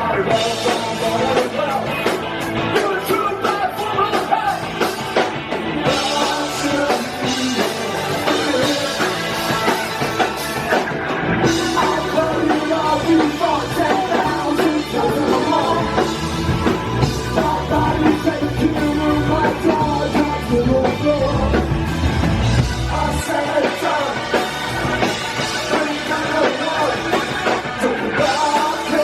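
A punk rock band playing live, with a singer over drums and guitars.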